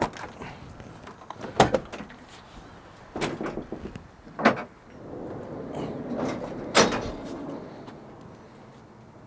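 Clicks and knocks from the ARE camper shell's rear latch being opened, then a Cargo Glide 1500XL pull-out bed slide rolling out of the pickup bed with a steady rumble and a sharp clunk near the end.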